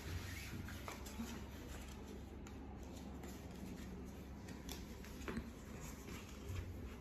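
Light rustling and handling of a fabric baby play mat and its plastic frame pieces, with a few small clicks and taps as the parts are fitted together.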